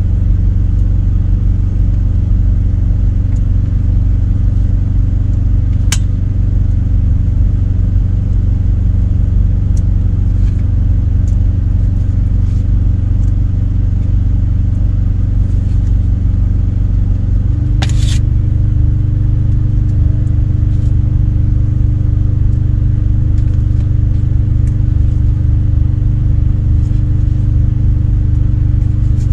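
A parked semi truck's diesel engine idling: a loud, steady low drone heard inside the cab. Its tone changes slightly about two thirds of the way through, and a few light clicks sit on top.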